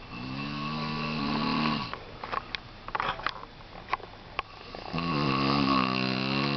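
A man snoring: two long, low snores, each nearly two seconds long, about three seconds apart, with a few sharp clicks in the pause between them.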